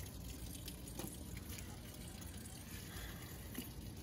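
Faint wet sounds of a knife cutting and hands working an iguana carcass's hide and flesh, with a few small clicks.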